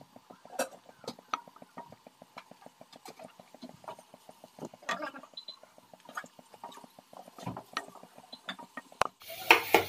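A wooden spatula stirring thick mint paste in a steel kadai as its water cooks off, with many quick light ticks and pops. Near the end a sharp click comes, followed by a steady sizzle.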